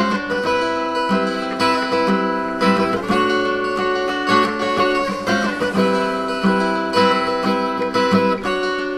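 Background music: a plucked acoustic guitar track with strummed chords.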